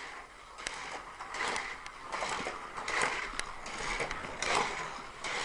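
Hot Wheels Sizzlers battery-powered toy cars racing around a plastic track, their small electric motors and wheels whirring and swelling about every one and a half seconds as a car passes close, with a couple of sharp clicks.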